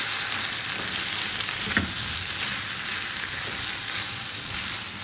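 Lamb tripe in spiced oil sizzling in a nonstick wok over low heat while a silicone spatula stirs it, with light scraping and a short knock about two seconds in.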